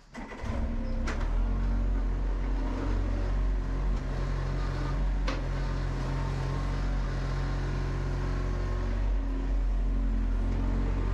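John Deere 35G mini excavator's diesel engine running under hydraulic load as the machine swings its boom, the engine note shifting a few times with the work, with sharp metallic clanks about a second in and again about five seconds in.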